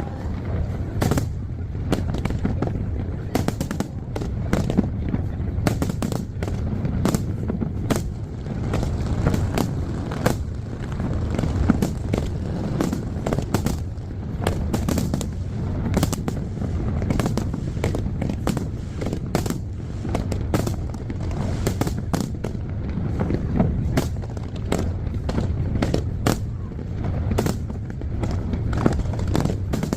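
Large aerial fireworks display going off in rapid, dense succession: many sharp bangs and crackles over a continuous low rumble. The recording is sped up to double speed.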